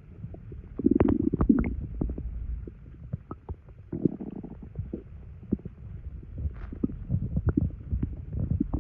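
Human stomach gurgling and rumbling after drinking two sodas' worth of carbonated liquid: a low rumble full of short wet pops and clicks, with louder gurgles about a second in and again about four seconds in.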